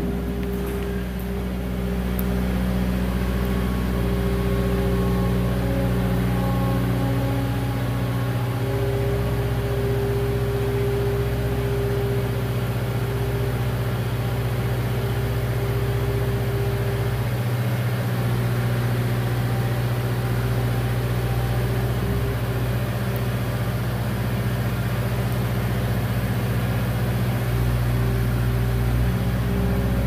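New Holland LS160 skid steer's diesel engine running steadily at a constant speed as the loader works.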